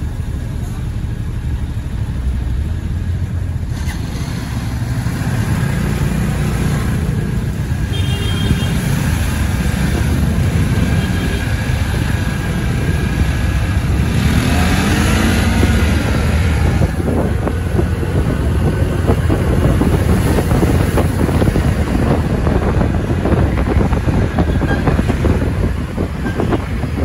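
Motorcycle engine running under way, with a brief tone that rises and falls about halfway through. Wind buffets the microphone in the second half.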